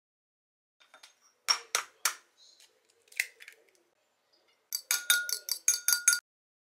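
Kitchenware clicking and clinking while cookie batter is prepared: a few separate clicks, then about a second in from the middle a quick run of about eight clinks with a ringing note, like a utensil knocking a bowl.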